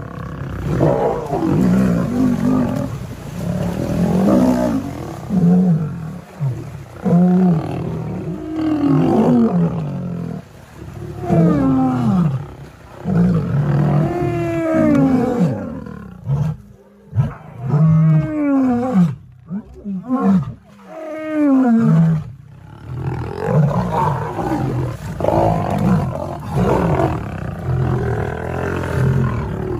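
Lions roaring and snarling in a long series of calls, many of them sliding down in pitch, thickest through the middle of the stretch.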